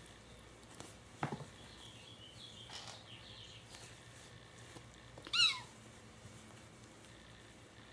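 A kitten gives one short, high-pitched mew, falling in pitch, about five seconds in. A faint tap comes about a second in.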